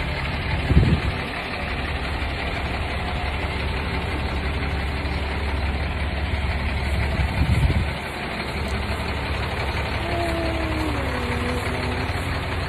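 Steady low engine rumble of an idling vehicle. Two brief low thumps hit the microphone, about a second in and again near eight seconds.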